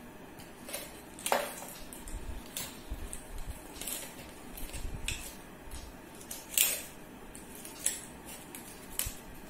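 Thin plastic water bottle crackling and clicking in irregular sharp snaps as a sock is stretched over its cut-off end. The loudest snaps come about a second in and again a little past the middle.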